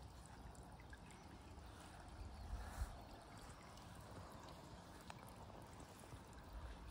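Faint, steady trickle of water from a small stone fountain bubbling in a garden pond, over a low rumble.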